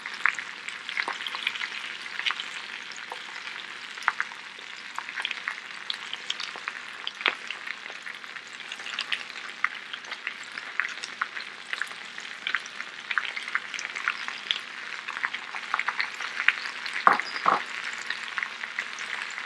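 Sliced potatoes sizzling in oil in a cast-iron skillet and a nonstick pan: a steady sizzle dotted with many small crackles and pops. A couple of light knocks come near the end.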